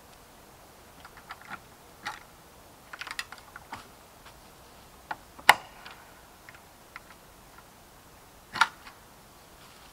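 Scattered light clicks and taps, irregular, with two louder sharp clicks about five and a half and eight and a half seconds in.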